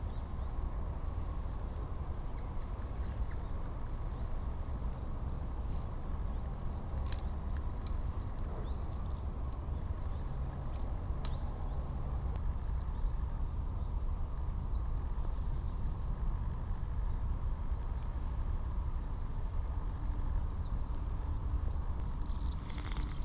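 Forest ambience: small birds chirping high and thin over a steady low rumble, with a couple of sharp clicks. Near the end a denser high chirping comes in.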